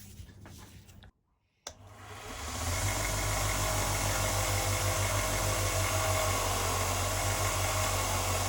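An electric power tool starts up about two seconds in and runs steadily with a low hum and a wide hiss, used to clean heavy grime off a bicycle part down to its pitted bearing surfaces.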